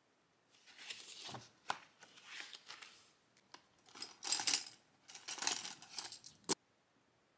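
Pens and highlighters rattling and clicking against each other and the plastic as a hand rummages in a clear plastic zip pencil case, in several bursts, with one sharp click near the end before the sound cuts off.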